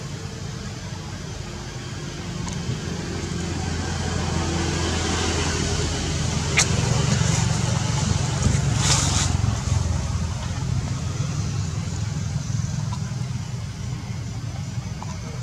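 Low engine hum of a passing motor vehicle, growing louder to a peak around the middle and then fading. A single sharp click comes just before the peak.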